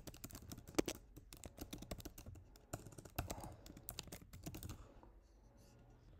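Typing on a computer keyboard: a quick run of key clicks that stops about five seconds in.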